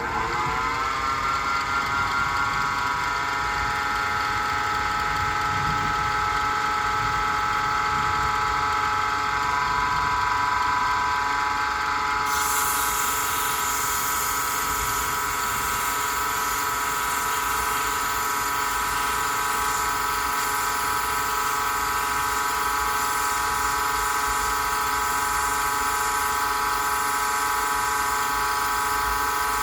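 Small electric wood lathe spinning up with a rising whine, then running steadily at speed. About twelve seconds in, a brighter hiss joins the motor sound.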